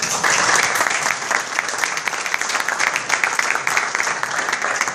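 Audience applause: many people clapping together in a dense, steady patter.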